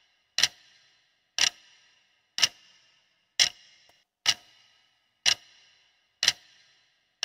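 Clock-tick sound effect of a countdown timer: a sharp tick about once a second, each with a short ringing tail, marking off the seconds as the count runs down.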